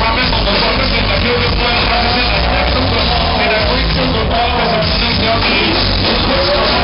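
Live hip-hop band music played loud through a concert PA, heard from inside the crowd: a sung melody line over a heavy bass beat.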